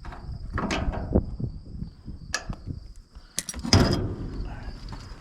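Metal clanks and knocks on a sheet-metal grain bin, one burst of clattering louder than the rest about three and a half seconds in, over a steady high buzz of insects.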